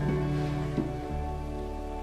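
Background music with slow, sustained notes and a low bass line that changes note about a second in.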